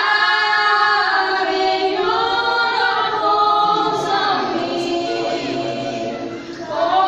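Women singing a Haitian Creole gospel song together in harmony, in long held phrases. There is a brief dip near the end before the next phrase comes in.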